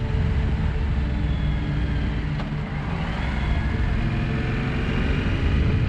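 Motorcycle running on the road, with its engine and a dense, steady low rumble of wind and road noise.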